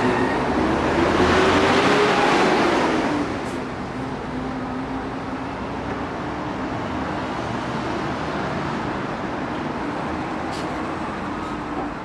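A city bus engine pulling away, its pitch rising over the first two seconds, then dropping off about three seconds in, leaving steady road traffic noise.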